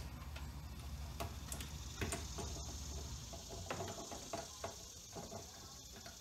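Light metal clicks and taps from a small hand tool working a hose clamp on the intake plenum of a BMW S85 V10, with a quick run of small ratcheting clicks a little over halfway through as the clamp is loosened.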